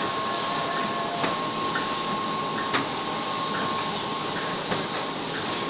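Clay brick-making machine running: a steady mechanical din with a constant high whine and short recurring squeaks. Three sharp knocks stand out, about a second and a half apart.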